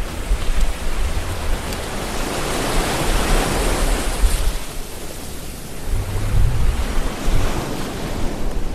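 Heavy surf breaking and washing over sea rocks, a loud rushing that swells a few seconds in, with wind buffeting the microphone.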